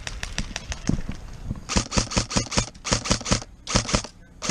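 Airsoft guns firing. Scattered sharp clicks come first, then from about a second and a half in, rapid strings of shots at about six or seven a second, broken by short pauses.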